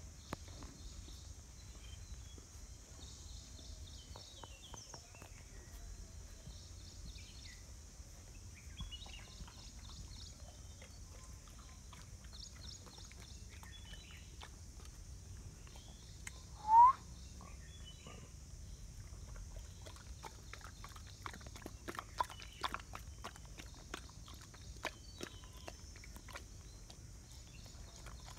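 Mudhol hound lapping and chewing ragi malt porridge from a steel bowl: a run of quick wet clicks through the second half. About halfway through comes a single short, loud rising chirp.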